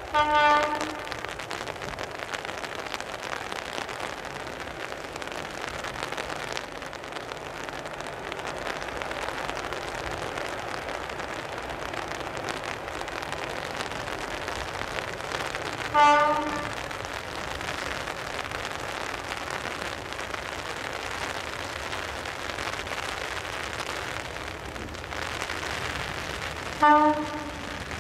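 Diesel freight locomotive's horn, an MLW, giving three short blasts spread out as the train approaches, each a single steady tone, over a steady hiss.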